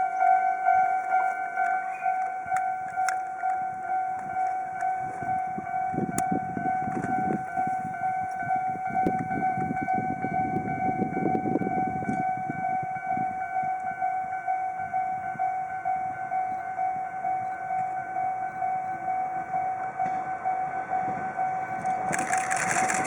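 Japanese level-crossing warning bell ringing over and over in a steady pulsing tone, with scattered camera shutter clicks. A low rumble rises and fades in the middle, and a rush of hiss comes in the last second.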